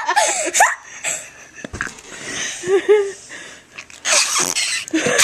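Flarp noise putty squeezed in its tub, pushing out air in hissy, fart-like squelches with a short squeak, the loudest puff about four seconds in; a child giggles at the start.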